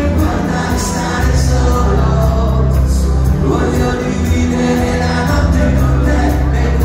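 Live pop music played loud through a concert sound system, with a heavy bass line and a steady beat.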